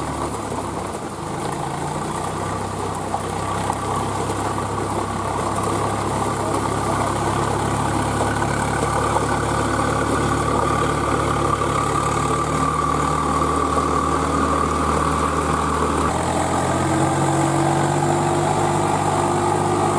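Diesel tractor engine running steadily as the tractor drives through deep mud. About three-quarters of the way through, the engine sound changes to a closer engine with a slightly rising pitch.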